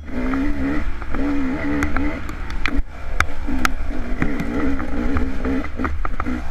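Dirt bike engine under way, its pitch rising and falling as the throttle is opened and rolled off, with sharp knocks and clatter from the bike over the rough trail and a steady low rumble.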